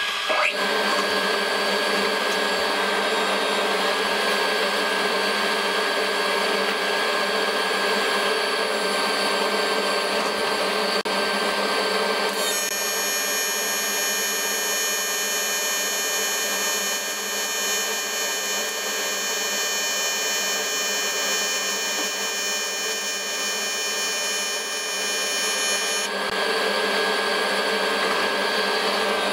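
Fume extractor blowing steadily. From about halfway through, the AC TIG arc of an EWM Tetrix 300 welder on aluminium adds a high, many-toned buzz, which cuts off suddenly near the end.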